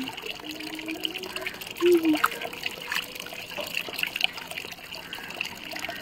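Water splashing and trickling as a woman bathes, throwing handfuls of water over her face and body.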